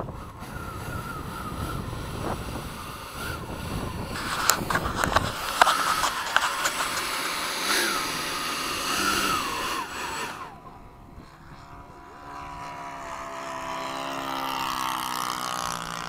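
Freewing F-22's twin 90mm electric ducted fans whining at taxi throttle, with wind rushing on the microphone. The whine wavers, then cuts off suddenly about ten seconds in, and a steadier hum of several tones follows.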